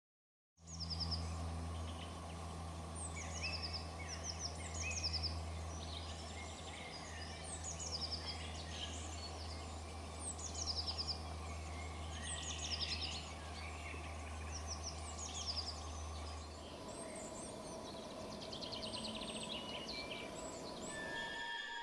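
Several songbirds singing: short chirps and quick trills, phrase after phrase, over a steady low hum that stops about three quarters of the way through.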